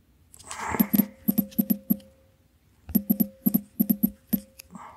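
Metal ratchet clicking in two quick runs of about eight clicks each, with a faint ringing tone under them: a clock's click and ratchet as the mainspring is being wound.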